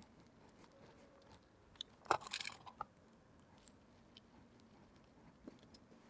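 Faint handling noises from insulated wires being worked through a 3D-printed plastic part: scattered small clicks, with a short cluster of sharp clicks and rustling about two seconds in.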